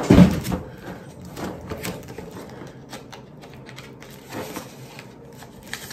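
Items being handled on a tabletop: a low thump right at the start, then scattered light taps and rustles, with a brief rustle about four seconds in.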